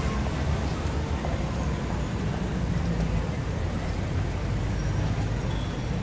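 Steady city street traffic ambience: a continuous low rumble of passing road vehicles.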